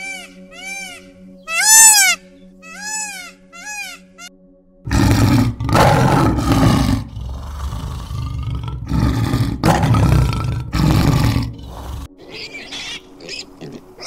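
An Indian peafowl (peacock) calling in a quick series of short arched calls over a steady low hum, then, about five seconds in, a lion roaring in several long, loud bursts. Faint short sounds follow near the end.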